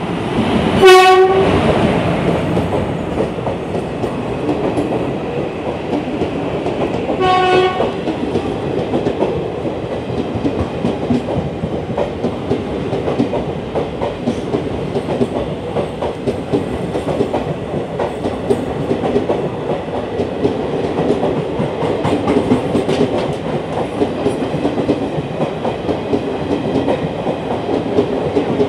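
Indian Railways WAP-4E electric locomotive sounding two short horn blasts about six seconds apart, the first the loudest, as the superfast express runs through the station at caution speed. The coaches then roll past with a steady rhythmic clickety-clack of wheels over the rail joints.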